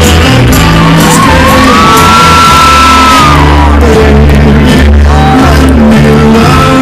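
Loud music over a venue's sound system, with a heavy bass line and held sung notes, and shouts and whoops from the audience over it.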